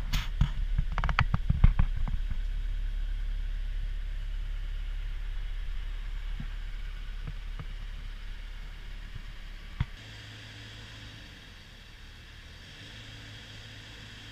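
A CAT 311F excavator's diesel engine running steadily, with a quick series of knocks and clanks in the first two seconds. The sound slowly fades, a single sharp click comes about ten seconds in, and after it only a quieter steady hum remains.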